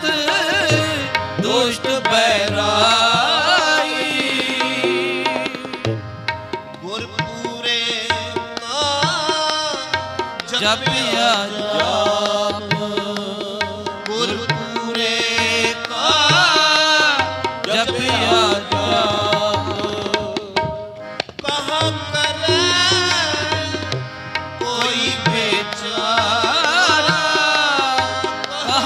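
Gurbani kirtan: harmoniums and tabla playing steadily, with a melody line sung over them.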